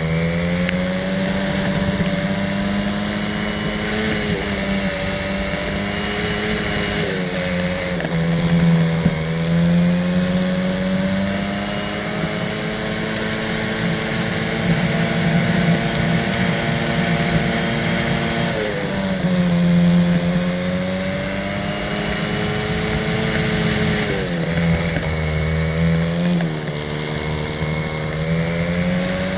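Racing go-kart engine heard on board, its pitch dropping as the kart slows for corners and climbing again on the straights, several times over. A steady rush of wind runs beneath it.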